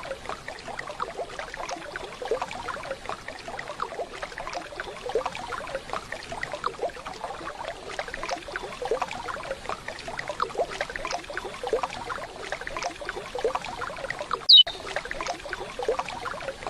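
Waterfall water splashing steadily, with one loud, short falling whistle near the end: a curió (chestnut-bellied seed finch) call note.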